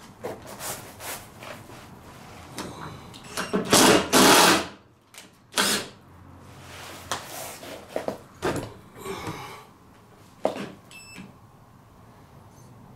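Cordless drill driving screws into timber floorboards in short runs, amid knocks of boards and tools being handled. The loudest run of the drill comes about four seconds in.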